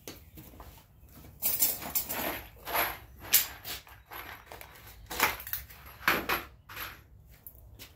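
Small metal hardware and tools being handled on a wooden door: irregular clinks, rattles and knocks, grouped in clusters, the busiest from about one and a half to three and a half seconds in.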